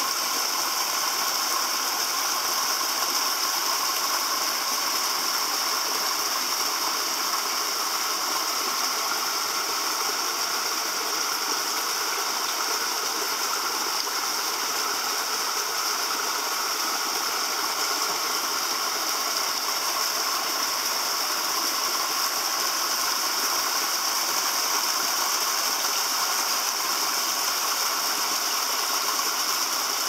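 Small waterfall splashing steadily into a rock pool: an even rush of falling water.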